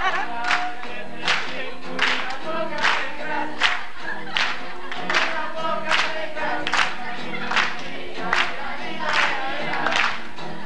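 Voices singing a song together to acoustic guitar, with a sharp clap on the beat about once every 0.8 seconds.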